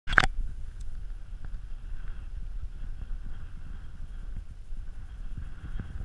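Gusty wind buffeting an open-air camera microphone: a low rumble with irregular low thumps. A short, loud noise burst comes right at the start.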